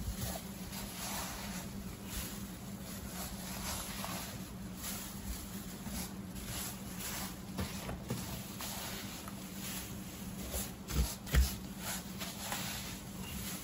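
Loose wood-shaving bedding rustling and scraping as a gloved hand sweeps it across a cardboard floor and drops it into a plastic bag, in a run of short scratchy strokes. Two louder thumps come about 11 seconds in, over a steady low hum.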